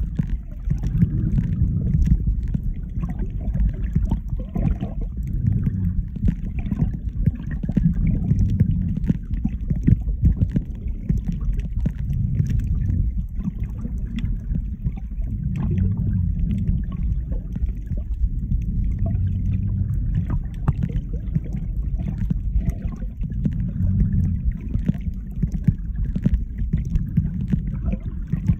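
Muffled low rumble of water moving over a phone's microphone held underwater by a swimming snorkeller, with faint crackling clicks throughout.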